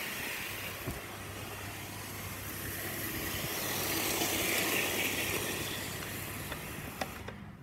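Model train running on its track: a steady hissing whir with a low hum, growing louder around the middle as it passes close, then cutting off sharply near the end.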